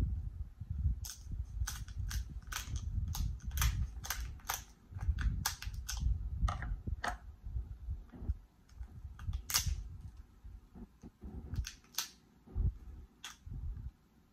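Close-up eating of boiled whole lobster: chewing and mouth smacks with many short sharp clicks, thinning out for a moment about ten seconds in.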